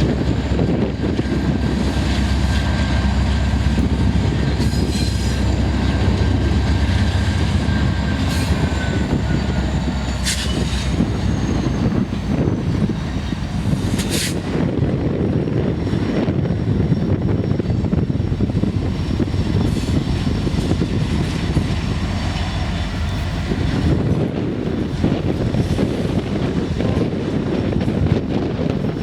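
Diesel freight train moving past: a deep locomotive engine rumble, strongest in the first ten seconds or so, over steady steel wheel-on-rail noise. A thin squeal slides slightly downward around eight to ten seconds in, and sharp clanks ring out at about ten and fourteen seconds.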